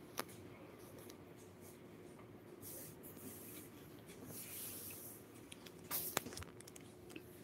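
Quiet room tone with a faint steady hum, soft rustling and a few small clicks, one near the start and a couple about six seconds in.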